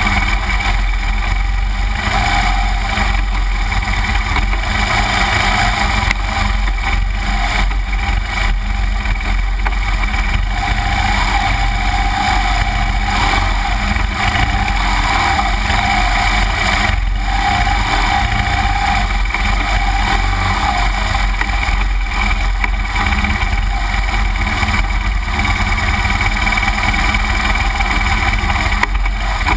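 BMW R1200GS Adventure's flat-twin boxer engine running steadily as the bike climbs slowly up a rough, grassy forest trail on knobby tyres.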